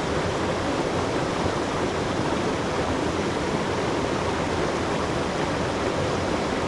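Water of a mountain stream rushing steadily.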